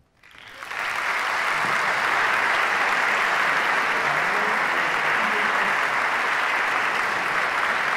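Theatre audience applauding, rising quickly over the first second from near silence to a full, steady clapping.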